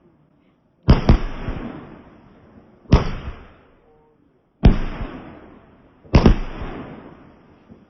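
Fireworks exploding: four loud bangs roughly one and a half to two seconds apart, the first and last each a quick double bang, every one fading out over a second or two.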